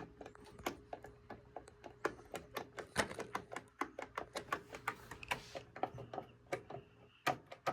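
Pinball flipper being wiggled back and forth by hand: rapid, irregular light clicks and knocks as the worn flipper shaft rattles with a lot of slop in its bushing.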